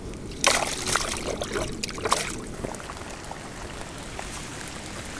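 Water splashing and trickling for about two seconds as a wet mesh fishing keepnet is handled at the water's edge, then light rain pattering on the pond's surface.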